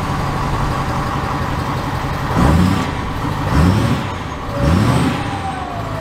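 A Ford F-350 Super Duty V8 idles just after starting, and the throttle is blipped three times, each time the revs rising and dropping back. A faint falling whistle follows near the end.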